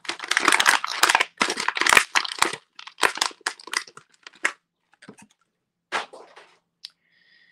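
Clear plastic bag crinkling and crackling as a small action figure is worked out of it by hand. Dense for the first couple of seconds, then scattered crinkles that thin out toward the end.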